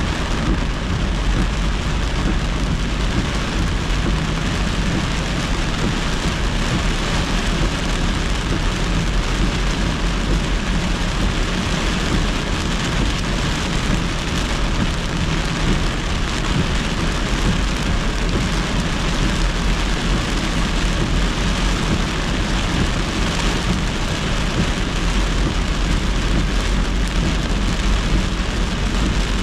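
Heavy thunderstorm rain hitting a moving car, a steady hiss of rain and wet-road tyre spray over a low road rumble.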